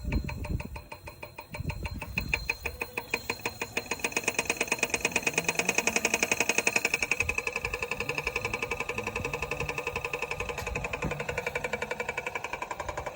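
Laguna Revo 15|24 wood lathe running with a regular ticking once per turn; the ticks speed up and get louder over the first few seconds as the lathe comes up to speed, then hold a fast, steady rate. The ticking is an unexplained noise on a new lathe.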